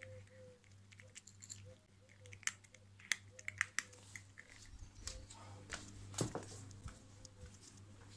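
A domestic cat crunching dry kibble from a bowl, with sharp, irregular crunches in the first half. Low rumbling and thumps follow in the second half, over a steady low hum.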